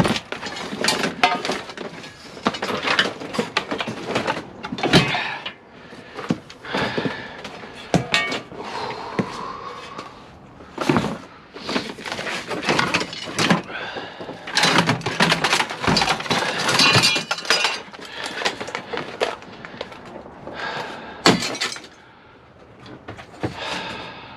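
Scrap metal being handled and tossed: irregular clanks, clatters and thuds of metal pieces striking one another, some with a brief metallic ring.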